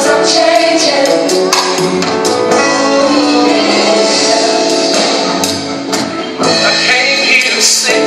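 Gospel song playing: a voice singing over band accompaniment, with sharp percussion hits throughout.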